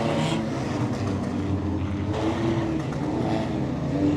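Many demolition derby cars' engines running and revving at once, several engine notes overlapping and rising and falling.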